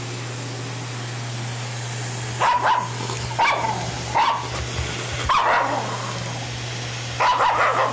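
Black Shiba Inu barking at a vacuum cleaner: five short bouts of sharp barks, a few single and some doubled, starting about two and a half seconds in, over a steady low motor hum.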